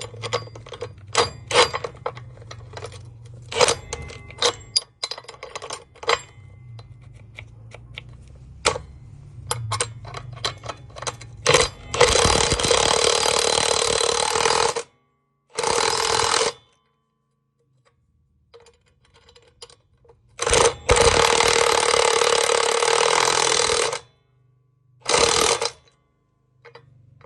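Metal hardware clinking and tapping, then an impact wrench running in several bursts of about one to three seconds with pauses, tightening the bolts and lock nuts of a tie-down mount onto a tractor's front frame.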